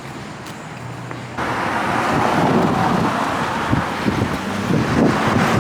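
Low hum, then about a second and a half in a sudden, loud rush of wind buffeting the microphone, with a rumble like traffic beneath it.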